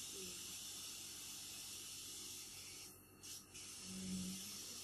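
Steady high-pitched background hiss, cutting out briefly about three seconds in, with a short low hum about four seconds in.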